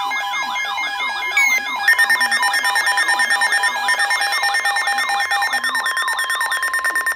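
Overlapping electronic emergency-alert tones. A siren-like tone sweeps downward over and over, about three times a second, above steady sustained tones. About two seconds in, a rapid pulsing beep joins and continues.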